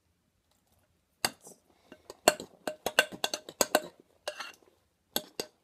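Spoon stirring thick fluffy slime in a large mixing bowl, clinking and knocking against the bowl in a quick, irregular run of strikes that starts about a second in, as borax solution is worked into the mix.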